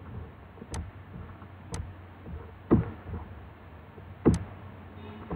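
A computer mouse clicking a few times, with two louder dull knocks about three and four and a half seconds in.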